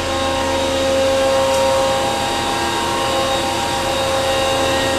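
Okuma & Howa Millac 630H CNC horizontal machining center running: a steady machine hum of several held tones over an even hiss.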